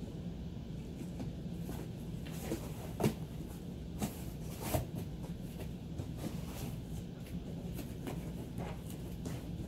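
Husky puppy pushing and tearing at a cardboard box: scraping and rustling of cardboard with a few dull knocks, the loudest about three seconds in, over a steady low hum.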